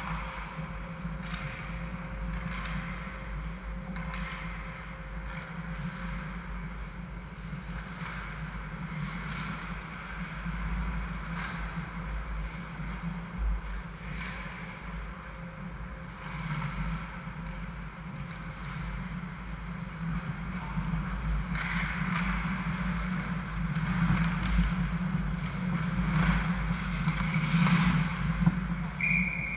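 Ice hockey game heard from behind the net: a steady low hum with distant skates scraping the ice and scattered stick and puck clacks. It grows louder and busier near the end as players skate in close around the goal.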